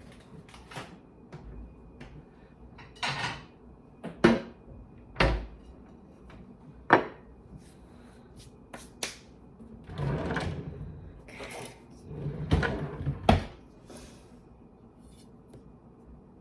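A knife and utensils being handled while cutting a slice of cheesecake: a few sharp knocks and clinks against the plate or cake stand, and several short scraping passes of the blade.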